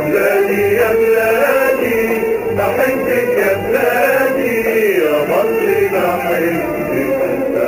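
Music with male voices singing an Arabic song, in long, wavering sung lines.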